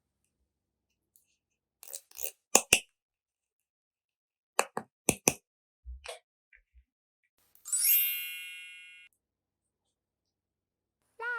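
Several sharp clicks and clinks of small hard objects being handled and set down, in twos and threes. Near the middle comes a bright chime that rings out and fades over about a second and a half.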